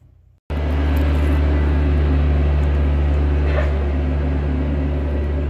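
An engine idling steadily with a constant low hum. It starts abruptly about half a second in.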